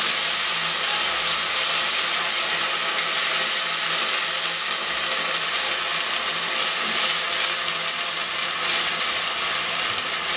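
Onion, garlic and green chilli paste sizzling in hot oil in a pot while it is stirred with a spatula: a steady high frying hiss.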